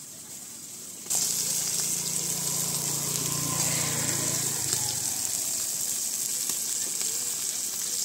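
Oil sizzling steadily under whole masala-coated tilapia frying on a large flat griddle, starting suddenly about a second in. A low hum runs underneath until about halfway through.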